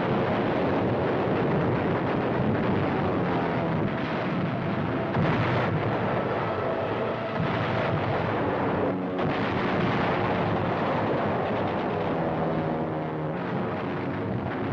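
Continuous heavy rumble of bombing explosions and gunfire on a 1940s newsreel soundtrack, with sustained droning tones underneath and sharper blasts about five and nine seconds in.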